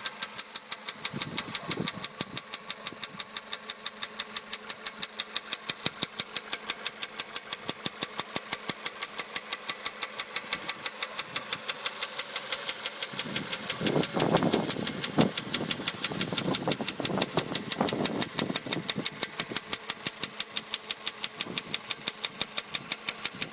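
Volkswagen Polo Sedan's 1.6 CFNA petrol engine idling warm with a fast, even metallic tapping knock. The knock appeared after a warranty piston replacement, and the owner's tags point to the hydraulic lifters.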